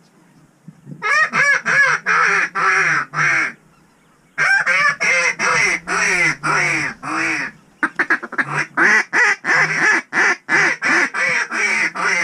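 Goose-style honking: loud, rapid series of pitched honks in three runs, each honk rising and falling in pitch, about four a second.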